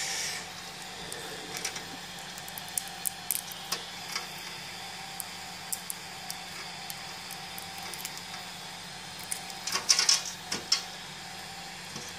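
Crackling and crunching of stringy printed ABS blobs being squeezed and pulled apart by hand, with a denser crinkly burst about ten seconds in. A steady machine hum runs underneath.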